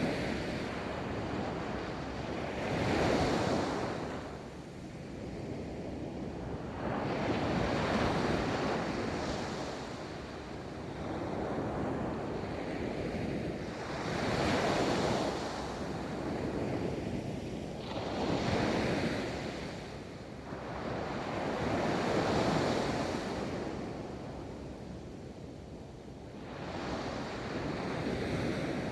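Ocean waves rolling onto a beach, the surf swelling and washing out in a steady cycle, a wave breaking about every three to four seconds.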